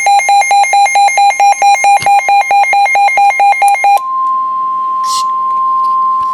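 Weather radio alert beeping rapidly, about seven high beeps a second. About four seconds in it gives way to the NOAA Weather Radio warning alarm tone, a single steady 1050 Hz tone that signals a warning is about to be read, here a flash flood warning.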